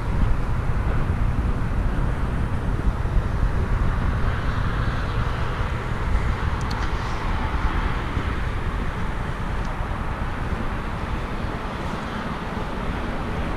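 Steady low rumble of idling diesel truck engines, unbroken, with a slight fall in level near the end.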